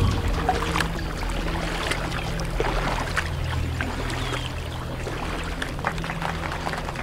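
Water splashing and sloshing with many small crackles as an underwater drone breaks the surface, over a low steady motor hum.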